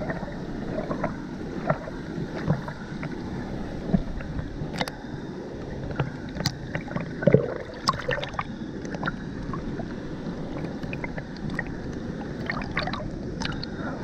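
Water sloshing and lapping against a camera held half-submerged at the surface of a waterfall's plunge pool, with many small sharp splashes and bubble pops over a steady rush of the falling water.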